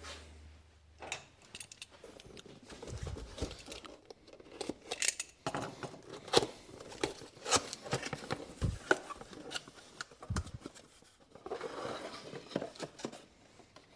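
Cardboard tool packaging being opened and handled: scattered irregular clicks, taps and short rustles of cardboard, with a longer stretch of rustling near the end.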